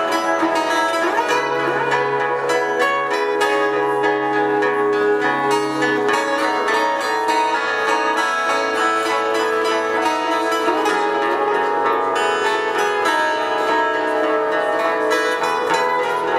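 Live band playing an instrumental passage with plucked-string sounds over sustained notes; a low bass note is held for the first few seconds.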